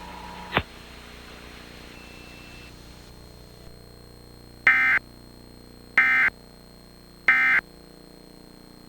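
Emergency Alert System end-of-message data bursts: three short, loud bursts of buzzy digital tone about a second apart, the signal that closes the monthly test. A single short click comes about half a second in.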